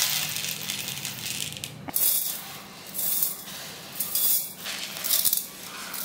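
Dry rock-sugar crystals poured from a steel cup onto a plate, and roasted rice and spices tipped into a steel mixer jar: a dry, high rattling patter in several short spells.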